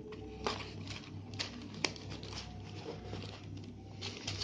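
Light handling sounds: faint rustling and a few sharp small clicks as the smartphone box is handled, over a low steady hum.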